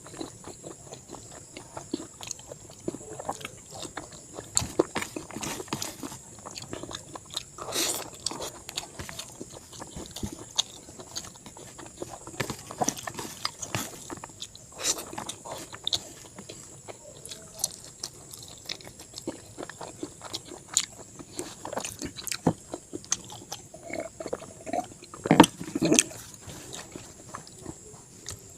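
Close-miked chewing and biting of pork with rice and curry: irregular wet clicks and crunches, with a louder cluster of bites near the end.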